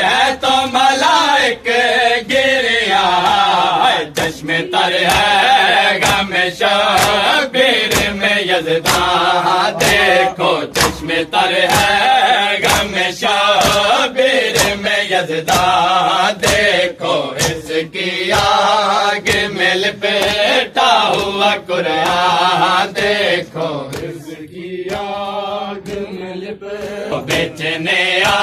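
Male voice chanting a noha, a Shia mourning lament, over a steady beat of sharp slaps from matam, the hands striking the chest. The chant turns softer for a few seconds near the end.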